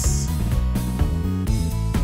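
Background music: held notes over a low bass, with a light beat.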